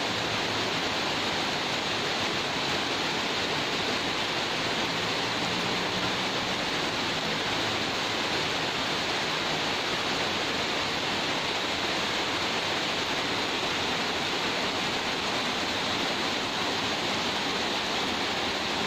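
Heavy rain in a steady, dense hiss, with water pouring off the edges of tiled roofs.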